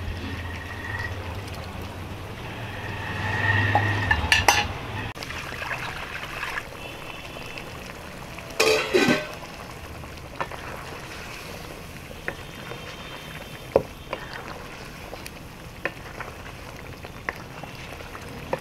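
Goat-trotter curry sizzling in a steel kadhai as liquid is ladled in and the masala is stirred with a wooden spatula. There are a few louder clatters of utensils on the pan about four and nine seconds in, then the spatula scrapes and taps against the pan.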